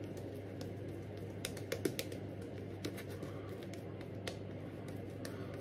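Silvertip badger shaving brush working soap lather over a stubbled face: scattered light clicking and crackling, bunched about one and a half to two seconds in and sparser after, over a low steady hum.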